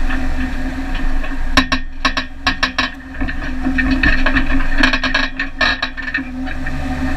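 Off-road vehicle driving over a rough, rocky trail: a steady engine and drivetrain drone with two runs of rattling and knocking as it jolts over bumps.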